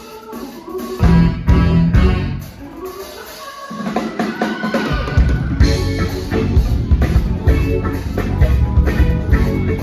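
Live band of guitar, Hammond organ, bass, drums, percussion, trumpet and saxophone playing an instrumental. The bass and drums drop back for a few seconds, then the full band comes back in about halfway through.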